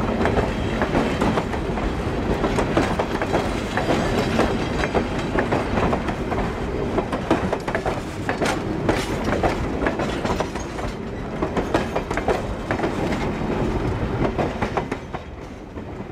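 Passenger coaches rolling past close by, their steel wheels clicking and clacking on the track over a steady rumble. The sound fades near the end as the last car goes by.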